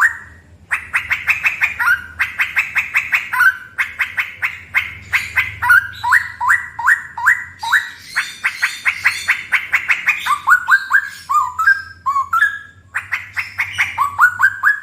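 Straw-headed bulbul (cucak rowo) singing loudly in its rapid 'ropel' style: fast runs of short upward-sweeping whistled notes, about seven or eight a second, broken by brief pauses. A faint steady low hum sits underneath.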